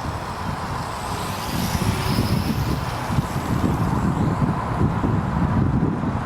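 Wind buffeting the microphone, with a steady high motor whine from a Dromida Vista quadcopter in flight.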